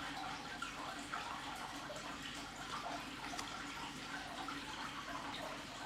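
Faint soft rustling and light ticks of trading cards being slid and flipped through by hand.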